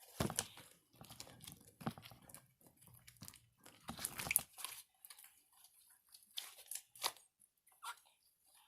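Homemade slime being squished, stretched and pulled apart by hand: irregular short sticky noises, the loudest stretch about four seconds in.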